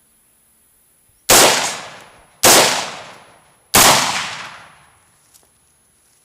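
Three rifle shots from an AR-15 in 5.56 with a custom 'bottle opener' muzzle brake, fired a little over a second apart. Each sharp report trails off in a long echo.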